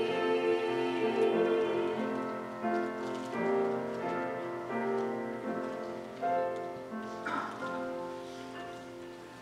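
Instrumental closing bars of a song's accompaniment: sustained chords with notes struck one after another, slowly fading away.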